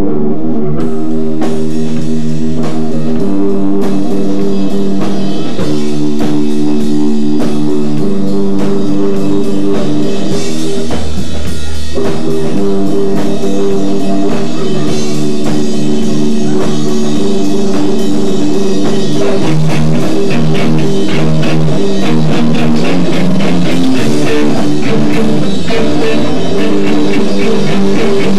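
Live emo rock band playing: electric guitars ringing out held chords over a drum kit, with the drumming getting busier in the second half.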